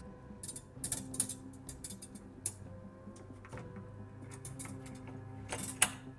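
Irregular sharp clicks and taps, the loudest about a second in and near the end, over soft background music with held tones.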